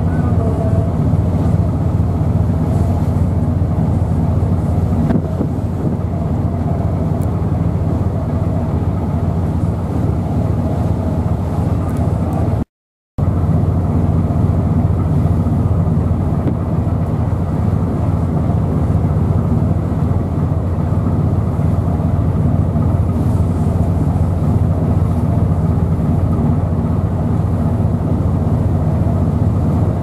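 Steady low engine drone under the rush of strong wind and rough sea, cutting out for about half a second around thirteen seconds in.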